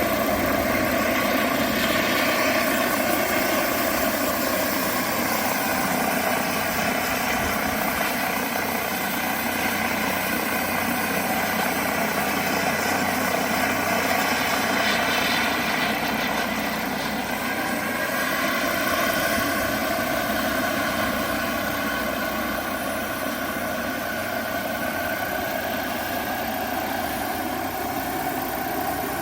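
Twin JetCat PHT-3 XL model turbines in a radio-controlled scale Bell 212 helicopter, running: a steady turbine whine of several held tones over a broad rush of rotor and turbine noise, the pitch shifting only slightly.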